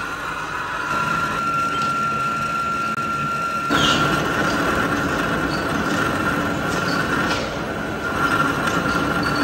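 Old Webster & Bennett vertical turret lathe machining a large steel pulley blank: steady machine noise with a thin, high tool whine over it. The noise grows louder and harsher about four seconds in.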